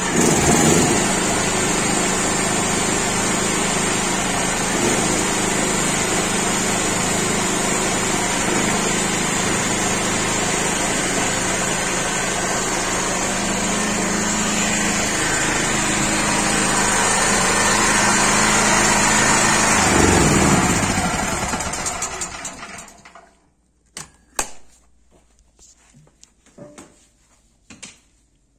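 Steady mechanical running of an old metal-cutting circular saw (cold saw) powered by a Blackstone BG 11050-FullPower petrol generator. About twenty seconds in it swells, then winds down and stops, leaving a few light knocks.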